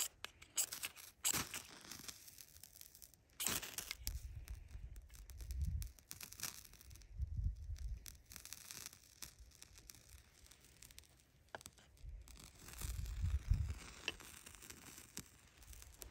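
Knife spine scraped down a ferrocerium rod in a series of separate rasping strikes, throwing sparks onto a tinder plug, with low rumbles in between.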